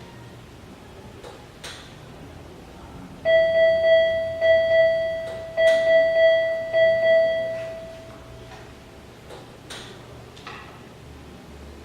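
Medical equipment alarm beeping a single tone in a three-beep, two-beep pattern, the high-priority alarm signal, played twice about three seconds in and then fading out. A few soft clicks come before and after.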